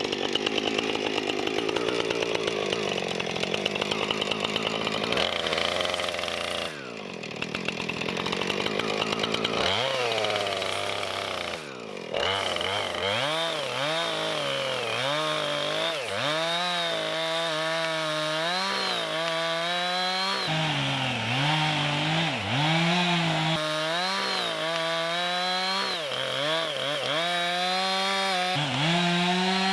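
Gas chainsaw cutting into yellow pine, its engine pitch repeatedly dipping and rising as the chain loads up in the wood and frees again. There are two brief drops in level, about a third of the way in and again just before the halfway mark.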